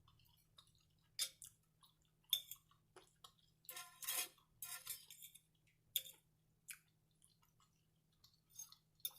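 Faint close-up eating sounds: scattered wet mouth clicks and smacks of chewing, with a denser run of them about four seconds in.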